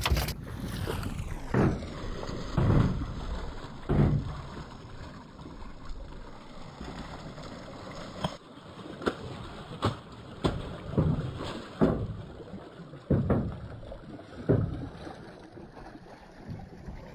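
A burbot knocker (chochonnotor) being struck into the water from a boat again and again to draw burbot: a series of low, dull thumps at uneven intervals, with a pause of a few seconds after the first three.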